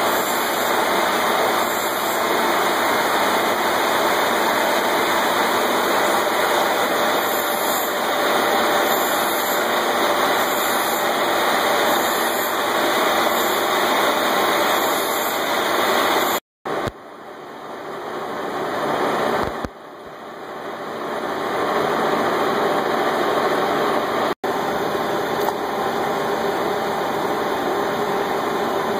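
Metal lathe running steadily as it turns a steel bar between centres. About halfway through the sound cuts out abruptly, returns quieter and builds back up over a few seconds, with another very brief dropout later on.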